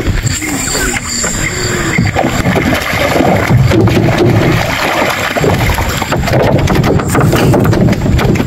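A hooked barramundi splashing at the surface beside a wooden boat, then knocking and flapping on the wooden deck boards as it is landed, over a steady low rumble.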